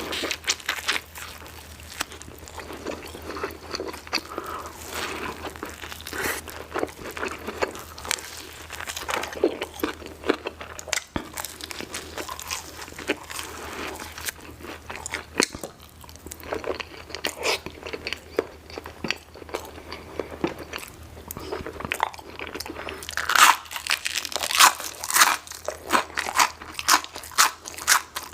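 Close-miked eating of chilli cheese dogs for ASMR: chewing and biting with many sharp crackly clicks, which grow denser and louder near the end.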